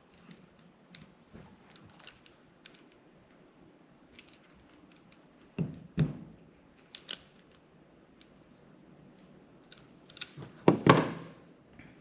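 Hand crimping tool clamping terminals onto a short length of 12-gauge wire: light clicks and taps of handling, two sharp snaps about six seconds in, and a cluster of louder snaps near the end.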